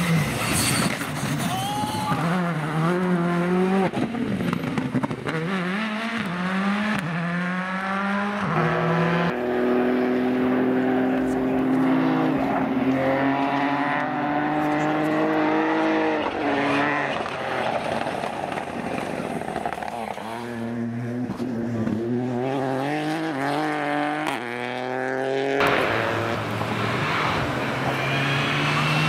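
Rally cars' engines at full throttle, one car after another passing on the stage. Each engine revs up and drops in pitch at gear changes, over and over.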